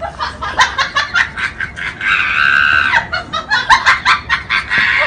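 A person laughing in quick, rapid bursts, broken about two seconds in by a high-pitched squeal held for about a second, then more laughter.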